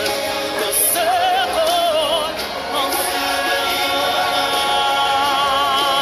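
Background music with singing voices holding long notes with vibrato.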